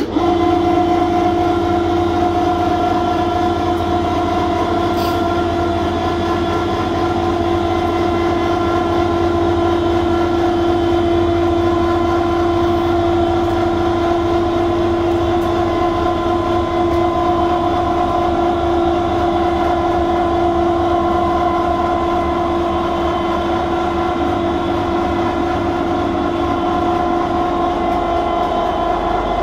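Electric hoist motor of a homemade motorcycle lift running under load with a steady, loud hum, starting abruptly as it raises the platform carrying the motorcycle.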